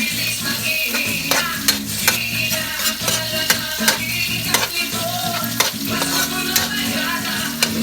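Food sizzling in a frying pan while a utensil stirs it, knocking against the pan in irregular clicks. Background music plays underneath.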